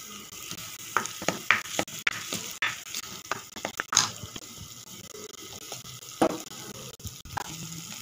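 A plastic spoon stirring and scraping a thick onion-tomato masala paste around a kadai, over the steady sizzle of the paste frying in hot oil. The scraping strokes come irregularly, the loudest about one and a half, four and six seconds in.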